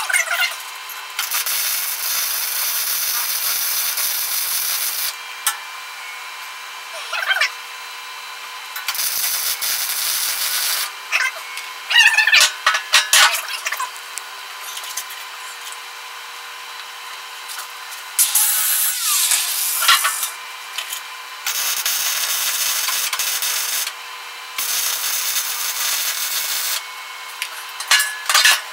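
Arc welding in short runs of a few seconds each: a steady crackling hiss that starts and stops abruptly, about five times, with clanks and clatter of metal being handled between the runs.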